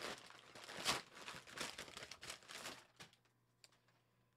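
Packaging crinkling and rustling as it is opened by hand, with a louder crackle about a second in; it stops after about three seconds.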